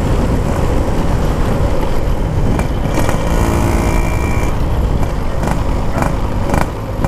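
Yamaha RX King's 135 cc two-stroke single-cylinder engine running on the move through its aftermarket exhaust, heard from the bike in traffic. A few short sharp cracks come near the end.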